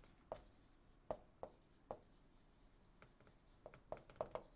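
Faint taps and scratches of a stylus writing on a tablet screen: a few short strokes spaced out, then a quicker run of strokes near the end.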